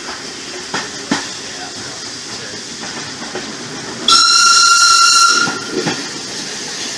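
Train running along with a steady rumble and a couple of sharp clicks from the rails in the first second or so. About four seconds in, the locomotive's whistle gives one loud, high blast of a little over a second.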